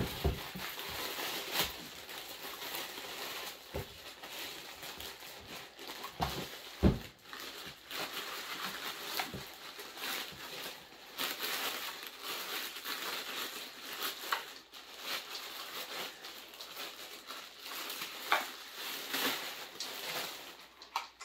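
Clear plastic bag rustling and crinkling as it is worked off a chainsaw, with a few dull thumps, the loudest about seven seconds in.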